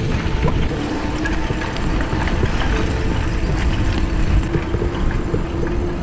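Bicycle being ridden along a forest dirt road: steady rumble of wind on the microphone and tyres on the ground, with frequent small clicks and rattles from the bike.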